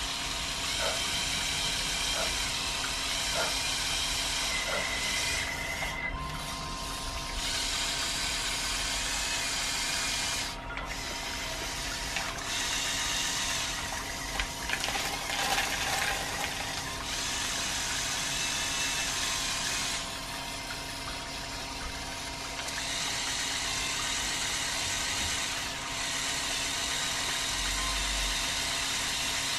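LEGO Technic electric motors whirring as they drive the excavator's long linear actuators, boom, arm and bucket, starting and stopping in turns every few seconds. About halfway through, beans rattle and clatter as the bucket scoops and dumps them.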